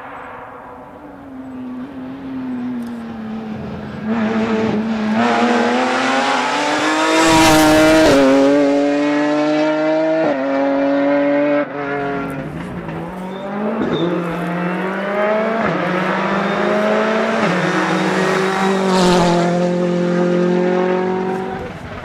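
Rally car engine at full throttle as it comes up the stage and passes, its note climbing and breaking with gear changes. It is loudest about seven seconds in, then keeps climbing through the gears as it pulls away.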